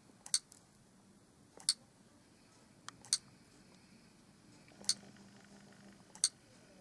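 Sharp clicks of keys being pressed one at a time on a tablet's on-screen keyboard while a code is typed in: five single clicks, about a second and a half apart.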